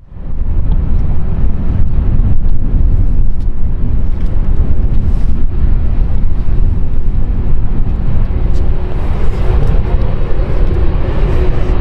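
Loud low rumble of wind buffeting the microphone, unsteady and gusty throughout.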